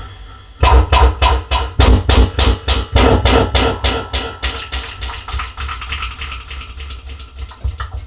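Mouth-made sound effect into a handheld microphone run through an echo effect: a fast, even train of sharp pulses, about four or five a second, that starts suddenly just over half a second in and slowly fades, with a thin high tone held through the middle.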